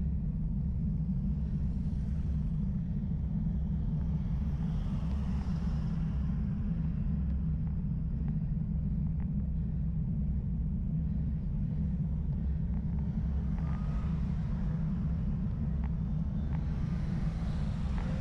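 Steady low rumble of road and wind noise picked up by a bicycle-mounted camera on a climb, with the hiss of passing motor traffic rising twice: a motorcycle a few seconds in, and cars near the end.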